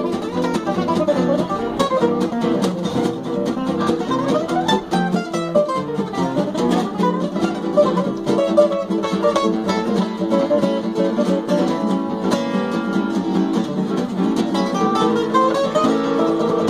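Fretless acoustic guitar played flat on the lap in a fast gypsy jazz tune: quick plucked runs, with notes sliding smoothly up and down in pitch between them.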